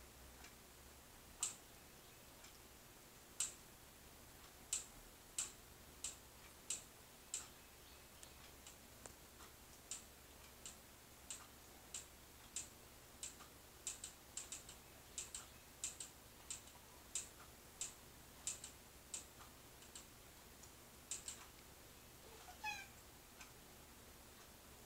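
Faint sharp clicks at uneven intervals, about one or two a second, and a short domestic cat meow near the end.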